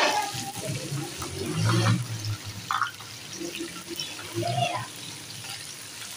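Chicken, tomatoes and green chillies frying in oil in a large aluminium pot, sizzling as a spatula stirs and scrapes through them.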